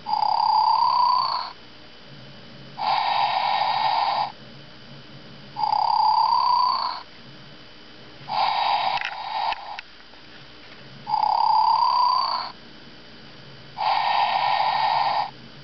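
Plush leopard toy's built-in snoring sound, repeating steadily. A breath in with a rising pitch alternates with a hissing breath out, each about a second and a half long with a short pause between, three full cycles in all.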